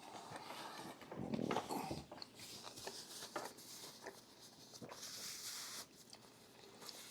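Close-miked eating: irregular chewing and mouth clicks, with a louder rustly stretch about a second in and two soft hissing stretches later on.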